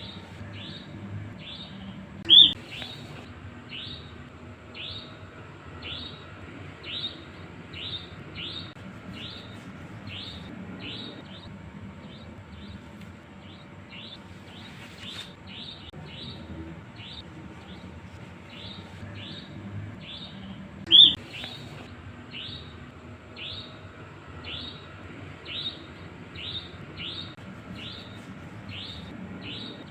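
Nightjar (cabak) calling: a short, high call sliding downward, repeated about twice a second in a steady series. Two calls stand out much louder, one a couple of seconds in and one about two-thirds of the way through.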